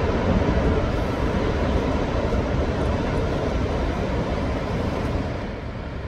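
Steady outdoor roar of wind and breaking surf from a heavy typhoon swell, with a low rumble of wind on the microphone. It eases slightly near the end.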